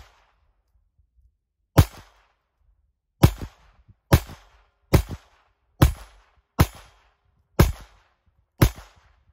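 Glock 44 semi-automatic .22 LR pistol firing eight shots of 36-grain high-velocity hollow points at an uneven pace, about one a second. Each is a sharp crack with a short echo trailing after it.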